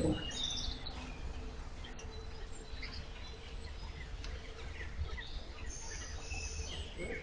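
Songbirds chirping from the bankside trees, a cluster of calls at the start and again near the end, over the steady low swish of the electric narrowboat's propeller moving water.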